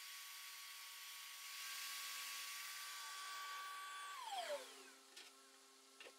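Table saw and its dust extractor running faintly after a rip cut, then switched off and winding down. A lower hum drops away about halfway through, then the main whine falls in pitch and dies out about four seconds in, leaving near silence.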